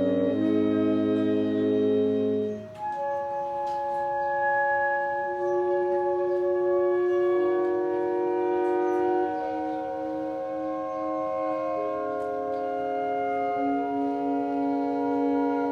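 Concert band of brass and woodwinds playing a slow passage of long held chords. A full low chord breaks off about three seconds in, and higher parts carry on with sustained notes that shift slowly from one chord to the next.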